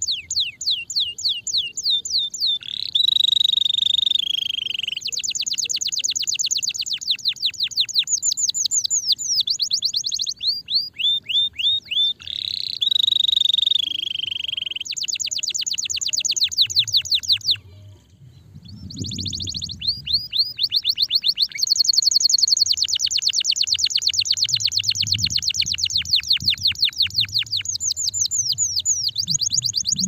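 Domestic canary singing a long song of fast trills, runs of rapidly repeated notes at changing pitches, broken by a short pause a little past halfway.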